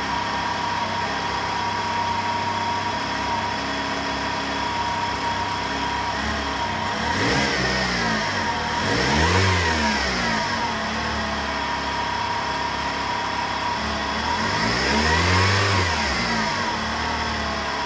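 Vauxhall Insignia's 1.8 petrol four-cylinder engine running at idle after its first start since the cam timing was reset. It is revved twice, once near the middle and again near the end, each time rising and falling over a few seconds. A steady whine from the power steering pump runs underneath.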